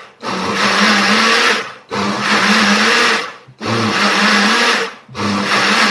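Personal bottle blender's motor running in four bursts of about a second and a half each, stopping briefly between them as the bottle is pressed down and let up. The jar is overfilled with fruit, which is hard to bring down to the blade, so not everything blends.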